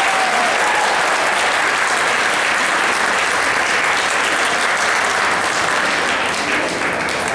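Audience applauding steadily after the end of a high school concert band's performance, the clapping thinning toward separate claps near the end.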